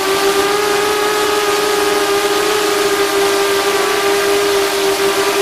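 FPV racing drone's motors and propellers whining steadily in flight, heard from on board. The whine is loud and buzzing, and its pitch holds nearly level.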